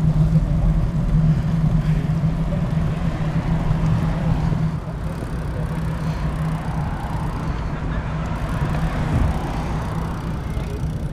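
Wind rushing over the microphone of a handlebar-mounted camera on a moving road bicycle, with tyre and road noise; a steady low hum drops away about five seconds in.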